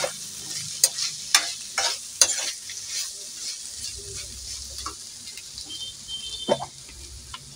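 Steel spatula scraping and stirring ivy gourd pieces frying in a kadai, over a steady sizzle. The strokes come about twice a second for the first couple of seconds, then ease off, with one more stroke near the end.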